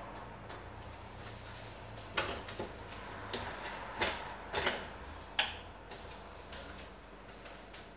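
Irregular light plastic clicks and knocks, a dozen or so and loudest between about two and six seconds in, from a coolant filling funnel and its hose being handled at a PC water-cooling reservoir. A low steady hum runs under them and drops away near the end.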